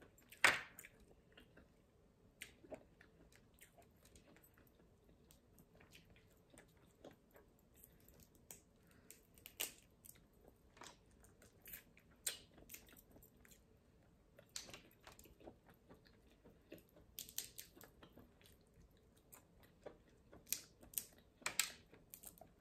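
Steamed blue crab being picked apart by hand and eaten: scattered sharp cracks and clicks of shell breaking, with chewing between them. The loudest crack comes about half a second in.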